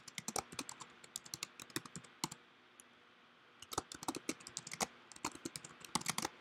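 Typing on a computer keyboard: quick runs of key clicks, with a pause of about a second in the middle.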